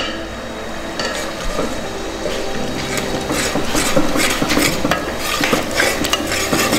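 A metal spoon scraping round an aluminium pot as onion paste and spices are stirred while they fry. The strokes come quick and repeated, growing busier from about three seconds in.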